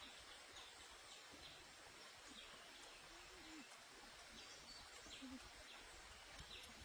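Near silence: faint outdoor ambience with scattered short, high chirps.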